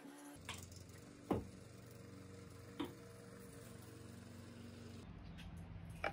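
Soft handling knocks over a faint low hum as a Grizzl-E EV charger's rubber-jacketed charging cable is looped onto the wall-mounted charger's cable hook, with two clearer knocks about a second in and nearly three seconds in.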